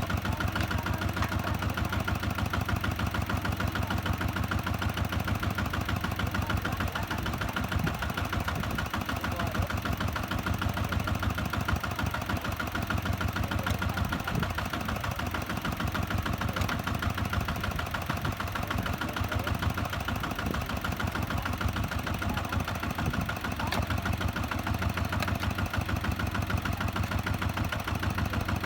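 Kubota ZT-150 single-cylinder diesel engine of a two-wheel tractor running steadily with a fast, even chugging beat.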